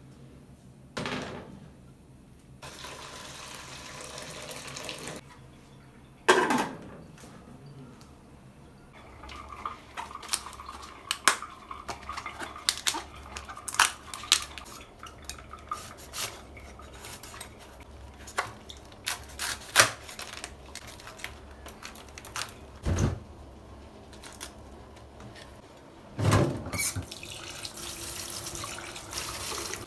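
Kitchen work sounds: a pot and spoon clattering as food is tipped out, then many sharp snaps and crackles as leaves are torn off a fresh cabbage, then a kitchen tap running into a steel sink near the end.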